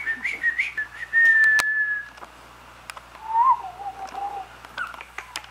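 A person whistling two tones: first a high whistle held for about a second, then a lower one that rises and wavers. Sharp clicks come between and after, most of them near the end.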